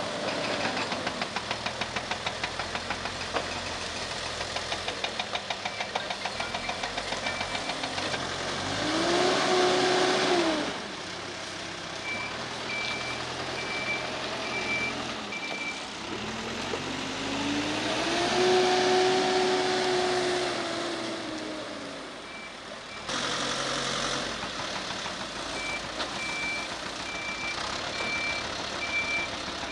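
Hidromek backhoe loader's diesel engine running, revving up and back down twice, briefly about nine seconds in and longer about eighteen seconds in. Its reversing alarm beeps steadily in two stretches in the second half.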